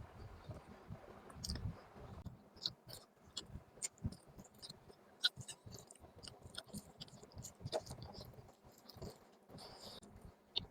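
Close-miked chewing of chicken and gravy: irregular wet smacks and clicks of the mouth, with soft low thumps.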